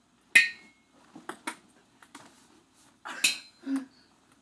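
Sharp clicks and knocks of ping-pong balls being hit and bouncing, several separate strikes: the loudest about half a second in, two light ones a little after a second, and another strong one around three seconds in.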